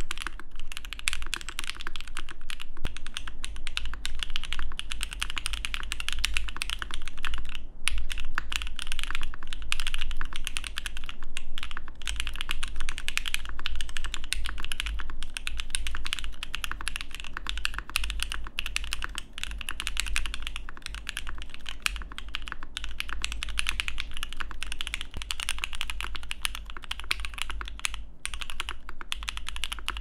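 Continuous fast typing on a gasket-mounted Matrix ME mechanical keyboard with SP-Star Meteor White switches, GMK keycaps and a flex-cut aluminium plate: a dense stream of key clacks. It is first played with plate and case foam installed, and partway through with the plate foam taken out.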